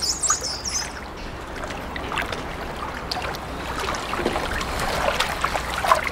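Water splashing and sloshing in a dolphin pool as the dolphin moves, with a few high gliding whistles in the first second.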